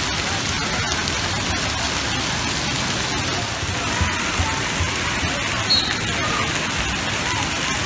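Water spraying and pouring down from a water-park play structure onto the wet deck: a steady, rain-like hiss.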